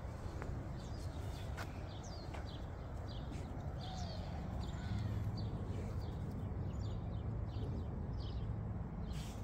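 Small birds chirping in short, repeated calls over a steady low rumble, with a few light clicks in the first couple of seconds.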